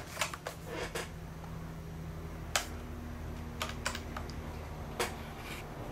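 Handling noise from a plastic-bodied airsoft rifle: scattered light clicks and taps, a cluster in the first second, then single ones every second or so, over a faint steady hum.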